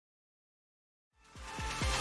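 Silence, then electronic dance music fades in a little over a second in, with a run of quick falling bass sweeps.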